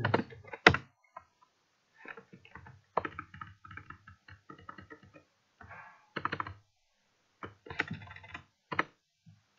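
Typing on a computer keyboard: irregular runs of keystroke clicks separated by short pauses.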